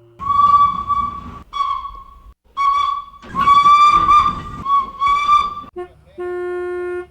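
Steam whistle blowing a series of six short and longer blasts at one high pitch, with steam hissing under each. Near the end comes a single short, steady, lower horn tone.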